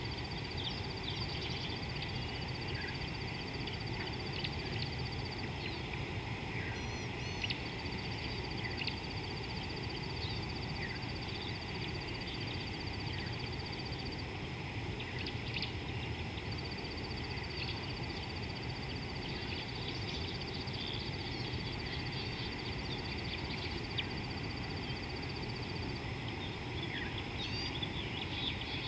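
Kenyan bush ambience: a high, steady insect-like trill that stops briefly twice, scattered bird chirps and calls, over a low steady rumble.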